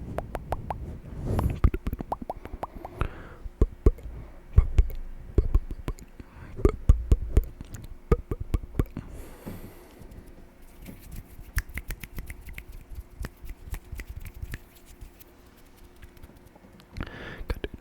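Close-miked ASMR mouth sounds: wet tongue clicks, lip pops and smacks in irregular runs, some with a soft low thump. After about ten seconds they turn quieter and quicker.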